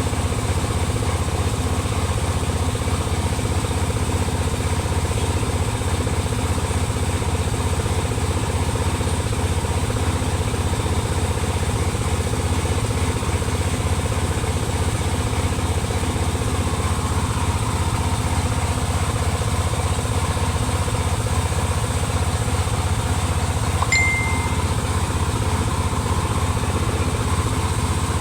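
Truck diesel engine idling steadily with a fast, even beat. Near the end there is a single click and a short high beep.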